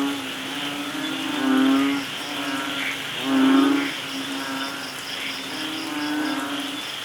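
Forest soundscape of steady rain hiss. A low, buzzy animal call repeats about every two seconds, over a fast, high, rhythmic pulsing.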